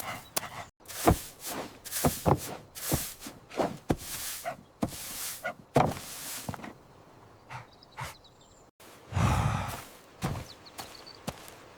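Cartoon sound effects: a quick run of thuds and knocks for the first seven seconds or so, then a louder rushing burst about nine seconds in.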